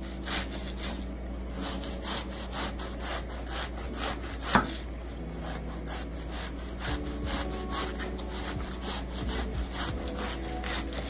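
Large kitchen knife shredding a half head of cabbage on a wooden cutting board: quick, even slicing strokes, about four a second, each stroke cutting through the leaves onto the board.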